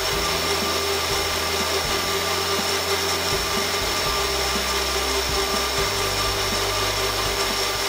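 Personal bullet-style blender running steadily, its motor giving a steady whine as it blends milk, chocolate and ice cubes into a milkshake.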